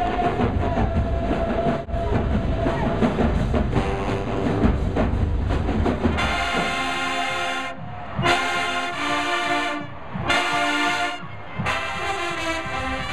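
Marching band's brass section, sousaphones included, playing loud sustained chords in short phrases with brief gaps between them. For the first six seconds or so there is a denser, noisier stretch of music before the brass chords come in clearly.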